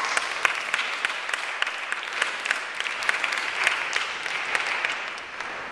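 An audience clapping, many hands at once, dying away near the end.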